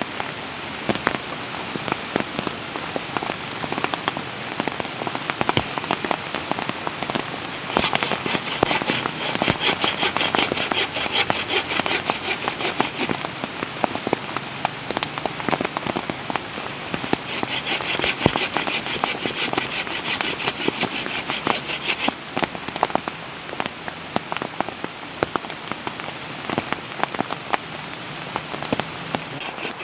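Rain falling steadily on a surface, with many separate drops striking. Twice, for about five seconds each time, a denser hiss joins in.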